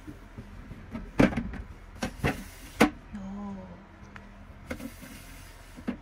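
Plastic refrigerator drawers being pulled out and pushed back, with sharp knocks of plastic against plastic about a second in, twice just after two seconds and again near three seconds, then a brief sliding sound and a few lighter clicks.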